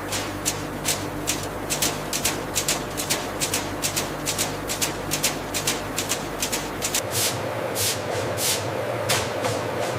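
Processing machinery running with a steady hum under rapid, irregular clicking and rattling, several clicks a second; the low hum changes about two-thirds of the way through.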